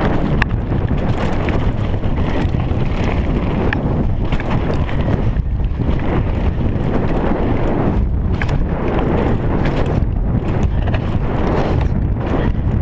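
Wind buffeting the microphone over the steady rumble of mountain bike tyres rolling fast on a gravel trail, with frequent short clicks and rattles from the bike and loose stones.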